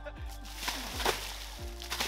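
Background music with a deep, steady beat, and water splashing as a large mirror carp thrashes in the angler's arms in the shallows, the splashing starting about a quarter of the way in.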